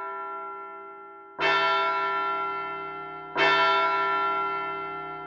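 A large clock bell tolling. Two strokes about two seconds apart, each ringing out and slowly fading, with an earlier stroke still dying away at the start.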